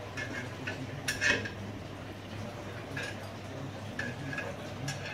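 Light metallic clinks of tools or parts being handled while working on the motorcycle, the loudest about a second in and a few more at intervals, over a steady low hum.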